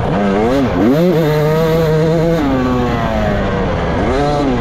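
Off-road racing dirt bike engine heard on board, revving with the throttle: the pitch climbs about half a second in, holds for a little over a second, drops away, then rises and falls again near the end.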